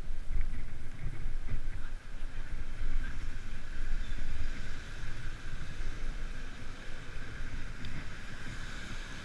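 Wind buffeting the microphone in uneven gusts over a steady hiss.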